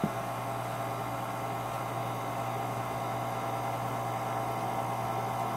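KitchenAid stand mixer running steadily, driving its fruit and vegetable strainer attachment, whose screw pushes tomatoes through the cone strainer. A brief knock right at the start.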